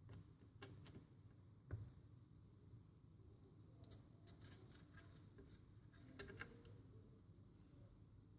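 Faint scattered clicks and light taps of small hard parts being handled during laptop disassembly, with one sharper knock a little under two seconds in.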